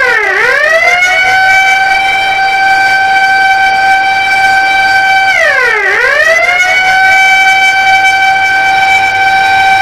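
Ramadan siren of the kind sounded to signal iftar and imsak, wailing loudly on one steady high tone. Its pitch dips sharply and swoops back up twice: once right at the start and again a little past halfway.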